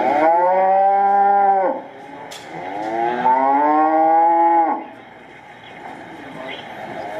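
Recorded cow mooing played through a high-output speaker built into a model barn: two long moos, the second starting about two and a half seconds in. The sound is loud enough that its vibration makes the toy cows around the barn move.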